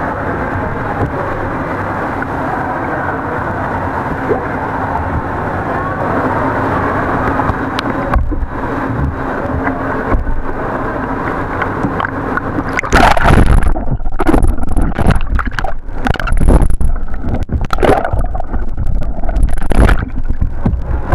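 Steady background noise of a kayak sitting on pool water. About thirteen seconds in, loud, choppy splashing and sloshing starts as the whitewater kayak capsizes and is rolled back up, with water washing over the deck and the camera on it, and dies down near the end.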